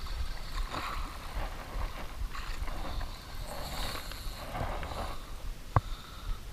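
Wind and water noise around a small wooden boat on open sea, low and steady, with one sharp click about six seconds in.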